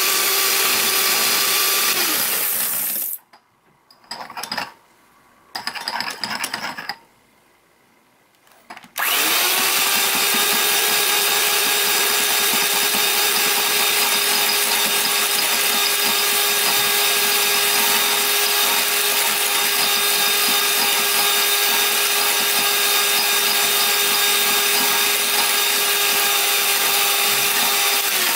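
Electric hand mixer with twin wire beaters whipping instant coffee, sugar and hot water in a glass bowl, its motor running with a steady whine. About three seconds in it stops, gives two short bursts, then starts again about nine seconds in and runs steadily.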